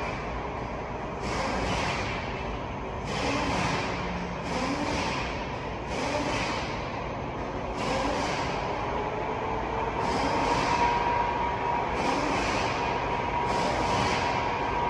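Bus garage background noise: a steady low rumble with a hiss that recurs about every second and a half, and a steady whine that comes in about ten seconds in.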